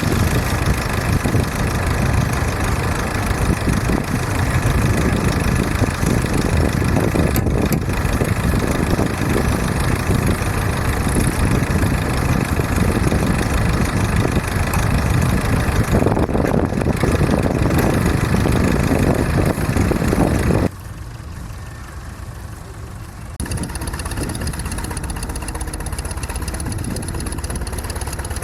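Steam ploughing engine running steadily. The sound drops off abruptly about 21 seconds in and returns a little quieter a few seconds later.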